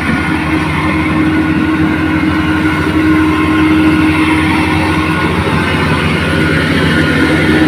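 Rice combine harvester's engine running steadily, with the even drone of the working machine.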